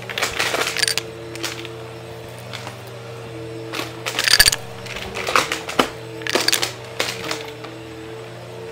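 Bagless upright vacuum cleaner running with a steady hum while coins are sucked up off a shag rug. The coins clatter and rattle through the nozzle into the clear dust bin in several bursts, with a quieter stretch of plain motor hum between about one and four seconds in, and again near the end.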